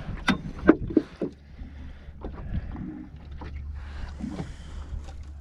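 Steady low hum of a fishing boat, with sharp knocks and clicks from fishing gear being handled on deck: several close together in the first second and a half, then scattered ones.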